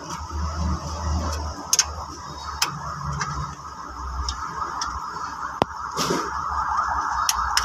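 Scattered light metallic clicks and ticks as bolts and fittings on a fuel filter housing are handled by hand, over a steady background hum.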